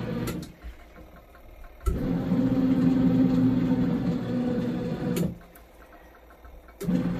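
Mini washing machine's wash motor humming steadily, then cutting out for about a second and a half twice and starting again with a click each time: the on-pause-on rhythm of the wash cycle. Faint ticking is heard in each pause.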